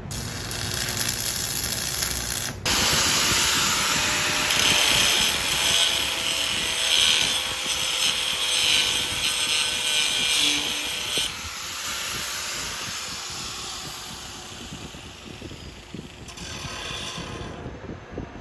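Power grinder grinding metal, a loud steady rasping that breaks off briefly about two and a half seconds in and eases to lighter grinding about eleven seconds in.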